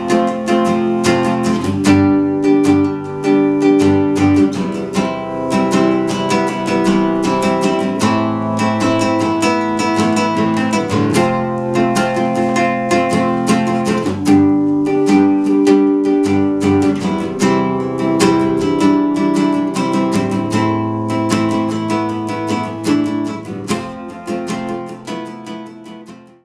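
Czech Cremona classical guitar strummed in rhythmic chords, fading out near the end.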